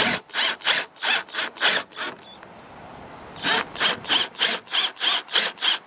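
Milwaukee M12 cordless drill/driver driving screws through a solar light's mounting holes into a wall. It runs in two spells of short, rapid pulses, about four or five a second, with a pause of over a second between them, one screw per spell.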